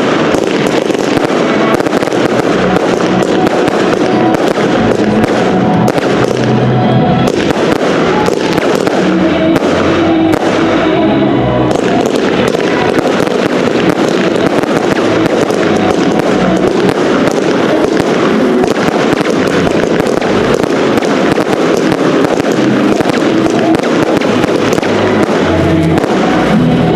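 Fireworks bursting and crackling in rapid, continuous succession, with music playing throughout.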